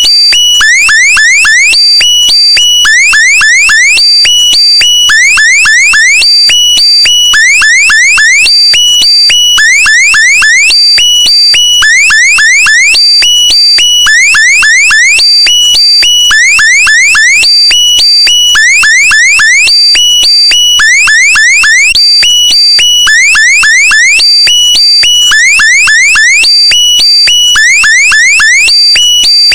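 Loud, looped electronic meme sound effect: a cluster of quick rising, alarm-like chirps that repeats about every two seconds.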